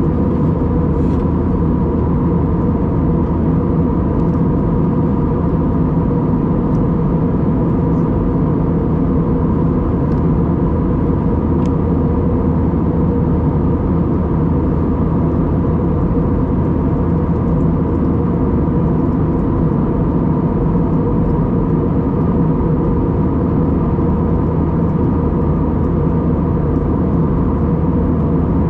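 Airbus A320's IAE V2500 turbofans and airflow heard inside the cabin as a loud, steady hum with several held tones, unchanging throughout.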